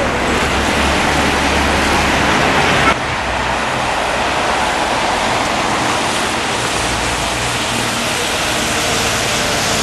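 Steady rushing noise of a running vehicle, with a low engine rumble underneath. A short click comes about three seconds in, after which the sound drops slightly.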